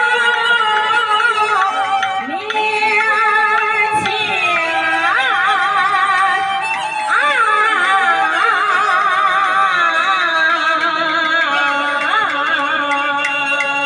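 A woman sings a Chinese opera aria in a xiaosheng (young male) role into a handheld microphone, with wide vibrato on her held notes. Steady instrumental accompaniment plays under her voice.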